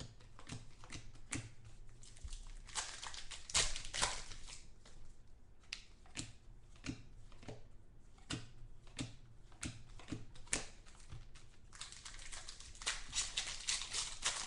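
Trading cards handled close to the microphone: a run of light clicks and taps as cards are flipped and set down, with longer stretches of rustling about three seconds in and again near the end.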